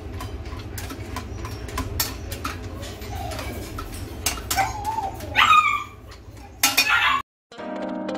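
A hand stirs dry kibble in a stainless steel dog bowl: small clicks and rattles of kibble against the metal over a steady low hum. Past the middle a dog whines loudly, its pitch rising. Near the end the sound cuts off and guitar music starts.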